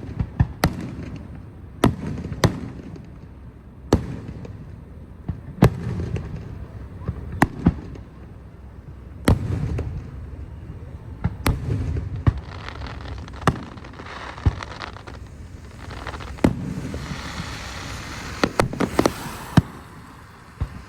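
Fireworks going off: sharp bangs at irregular intervals, several trailed by deep rumbling booms, with a spell of crackling near the end.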